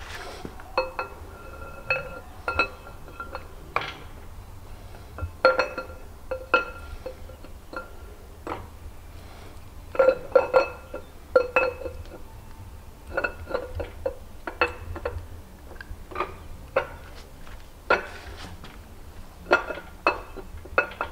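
Steel camshaft being fed into an LS V8 block, its lobes and journals knocking against the cam bearings in irregular clinks that each ring briefly like a struck metal bar.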